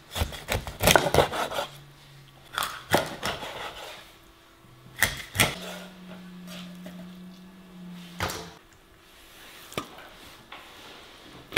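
Cleaver chopping a whole fish into steaks on a wooden cutting board: a series of sharp chops of the blade through the fish onto the wood, several in quick pairs.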